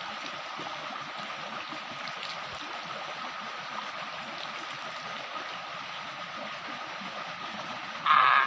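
Shallow rocky stream running steadily over stones, with a hand splashing in the water of a small pool. A brief, loud burst sounds shortly before the end.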